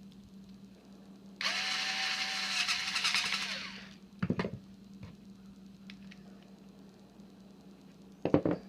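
Cordless screwdriver running for about two and a half seconds, driving a terminal screw down on a replacement extension-cord plug, then winding down. Two short handling knocks follow, one about a second after the motor stops and one near the end.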